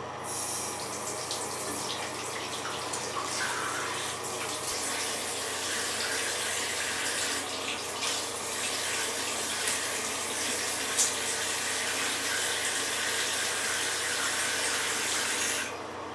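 Tap on a ceramic bathroom washbasin turned on, water running steadily into the basin. It stops suddenly near the end.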